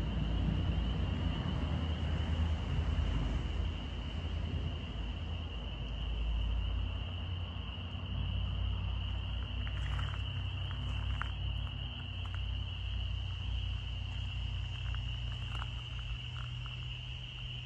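A night-time chorus of insects makes one steady, high-pitched trill. Under it, distant thunder rumbles and dies away over the first few seconds, leaving a faint low hum.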